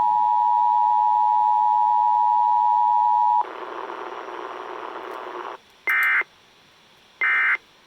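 Emergency Alert System required weekly test heard over AM radio through a portable radio's speaker. The steady attention-signal tone cuts off about three and a half seconds in and is followed by a couple of seconds of hiss. Then come two short bursts of end-of-message data tones, marking the close of the alert.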